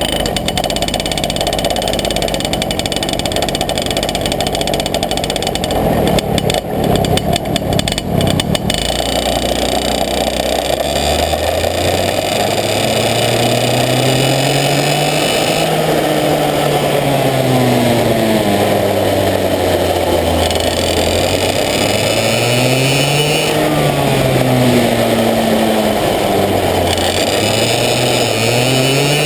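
Parilla Leopard 125cc two-stroke kart engine on a TAG kart, heard onboard. At first it runs with no clear pitch, then from about ten seconds in it revs up and down again and again as the kart accelerates and slows through the corners.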